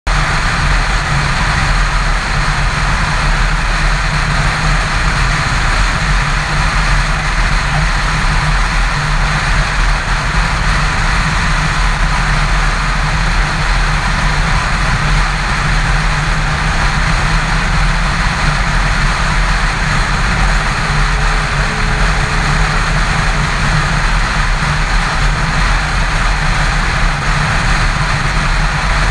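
Yamaha FZ6 inline-four motorcycle cruising at a constant highway speed: a steady low engine drone mixed with a loud rush of wind, with no change in pace.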